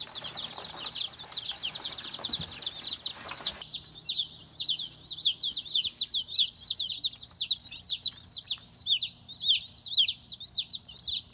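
A brood of newly hatched chicks peeping without a break, many quick downward-sliding peeps overlapping. Rustling sounds under the peeps for the first few seconds as the chicks are tipped from their cardboard shipping box onto wood shavings, then stops suddenly.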